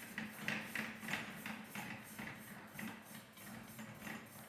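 Diamond core bit being spun by a gloved hand onto the core drill's threaded spindle: a faint, rhythmic rubbing and ticking, about three strokes a second, thinning out towards the end.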